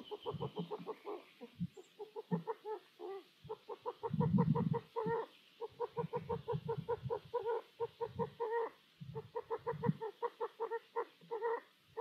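Long-eared owls at the nest box giving rapid clucking calls, about six or seven a second in runs broken by short pauses, with low thumps of the birds moving against the wooden box, loudest about four seconds in.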